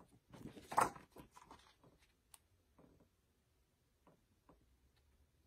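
Handling noise from a hardcover picture book being held up and shifted: a few soft rustles and taps, the loudest about a second in, then faint scattered ticks.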